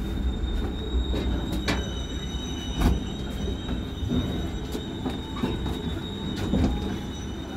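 Passenger train coaches running on the rails: a steady low rumble with a high wheel squeal held throughout, and a few sharp clacks from the wheels over the track. The train is approaching a station where it is about to stop.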